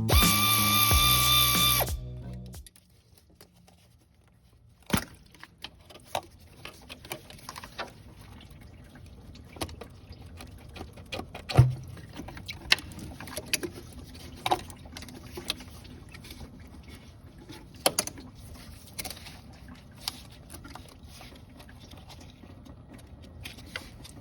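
Background music that stops about two seconds in, followed by scattered clicks, clinks and knocks of hand tools and parts being handled during engine work, with one louder knock near the middle.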